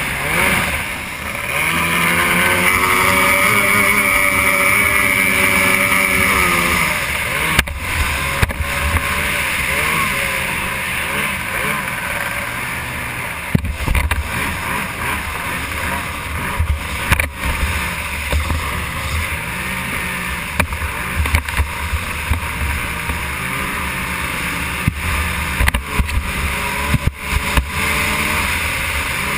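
Racing outboard motor of a stock hydroplane running hard at speed, heard from on board with rushing water and wind. Its pitch rises and then falls over the first few seconds, and a few sharp knocks come now and then.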